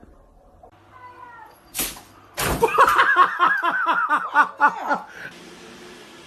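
A cat crying in a rapid run of short, repeated meows, about five a second, lasting roughly two and a half seconds. Faint shorter calls and a sharp knock come just before it.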